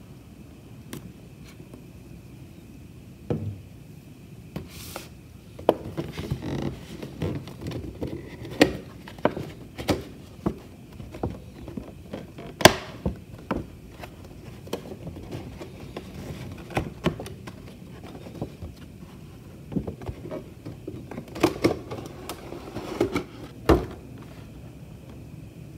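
Cardboard figure box and clear plastic blister tray handled by hand: scattered taps, scrapes and plastic crinkles, with a thump near the end.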